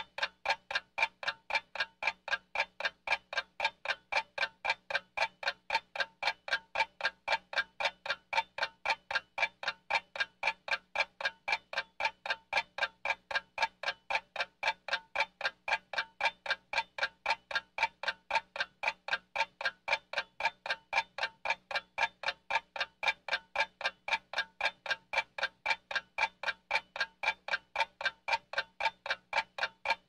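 Old mechanical clock ticking steadily, about four ticks a second, the ticks alternating louder and softer in a tick-tock pattern.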